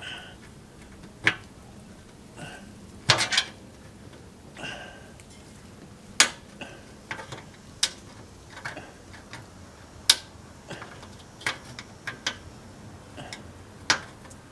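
Sharp metallic clicks and clinks at irregular intervals: hand tools working against the aluminium RV awning arm to pry off its second spring clip.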